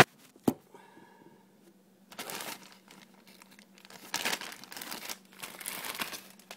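Clear plastic bags holding the cooler's mounting brackets and back plates crinkling as they are handled, in bursts from about two seconds in. Two sharp knocks at the start.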